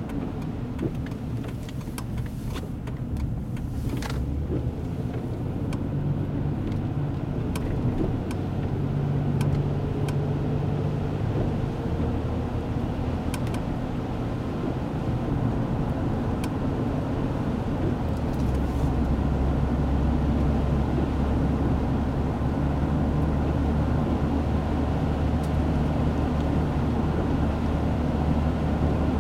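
Car cabin noise while driving: a steady low engine hum that steps in pitch a few times, over tyre noise on wet pavement, with a few faint ticks in the first half.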